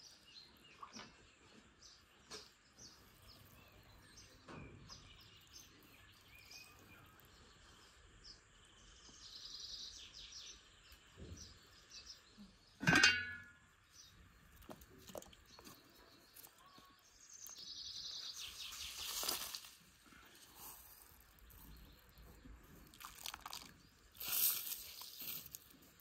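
Quiet food preparation: a knife cutting raw lamb fat on a wooden board, then one loud sharp knock about halfway through and water splashing in a cast-iron pot in the second half. Birds chirp faintly throughout.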